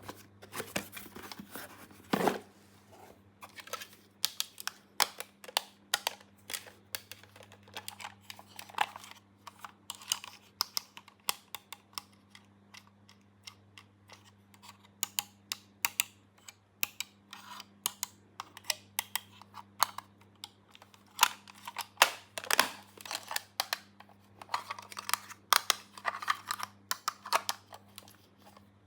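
Irregular clicks and taps of small plastic toy pieces being handled and set down, mostly light and quick with a few louder knocks, over a faint steady electrical hum.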